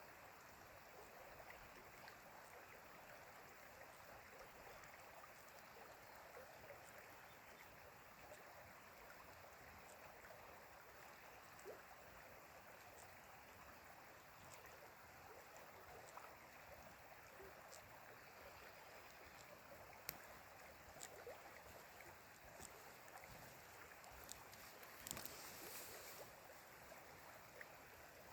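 Faint, steady rush of a flowing stream, with a few small ticks scattered through it.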